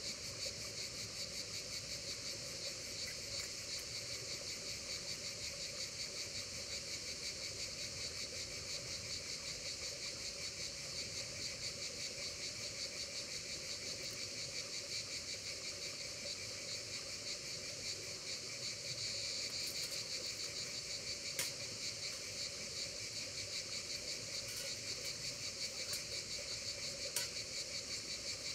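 A steady chorus of insects shrilling, a dense high pulsing buzz. Two sharp clicks stand out in the second half.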